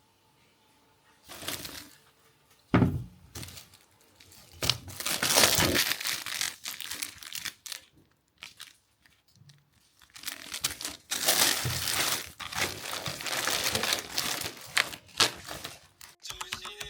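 Packaging being handled, crinkling and rustling in two long stretches with a sharp knock early on.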